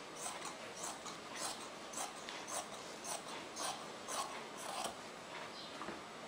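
Fabric scissors snipping through cotton cloth, about two cuts a second, stopping about five seconds in, as one edge of the piece is trimmed straight.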